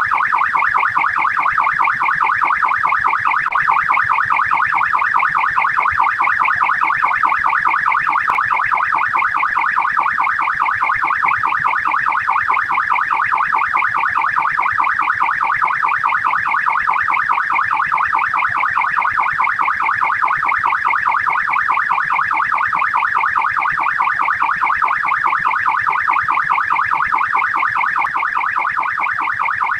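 Australian police siren on fast yelp: a rapid, continuous rising-and-falling wail, repeating several times a second without a break.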